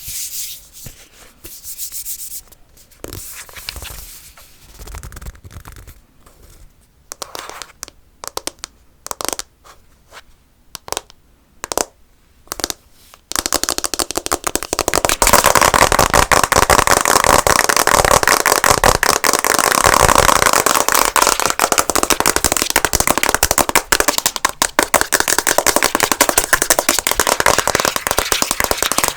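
Tapping and scratching on a hard object: scattered taps and short scrapes at first, then, a little under halfway through, a sudden switch to loud, fast, continuous scratching.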